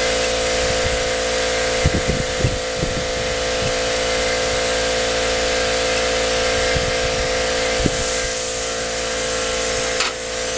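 Gravity-feed air spray gun hissing as paint is sprayed, over the steady hum of an air compressor running, with gusts of wind buffeting the microphone in low thumps.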